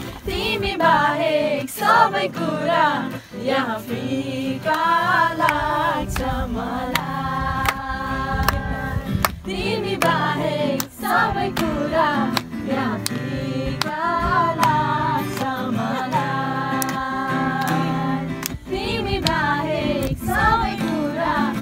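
A group of young women singing a Nepali song together, accompanied by a strummed acoustic guitar.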